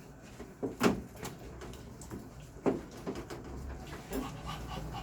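Two sharp knocks, about a second in and again nearly three seconds in, with smaller clicks between them over a low steady hum.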